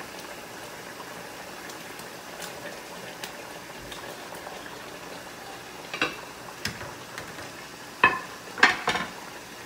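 Chicken curry sauce simmering in a large pot, a steady soft bubbling hiss. Several sharp knocks and clinks in the last few seconds as carrot strips are added to the pot.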